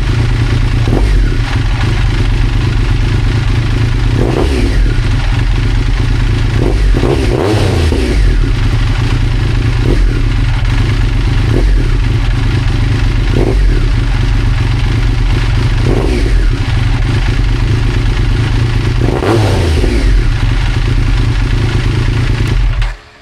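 Triumph Daytona 955i's three-cylinder engine idling hot, blipped up in a few brief revs, then cut off suddenly near the end.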